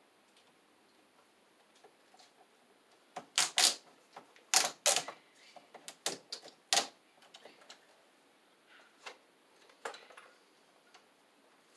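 Sharp clicks and snaps from Romex cable and its bare copper ground wire being handled and pulled straight. The loudest come in two quick pairs a few seconds in, then a single click, with fainter ticks around them.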